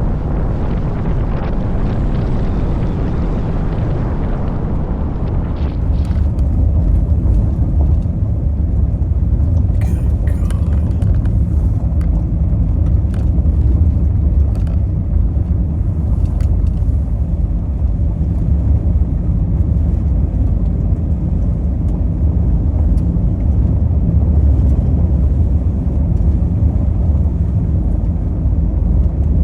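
A vehicle being driven, giving a steady low rumble of road and wind noise. There is a hissing rush in the first few seconds, and a few light ticks come in the middle.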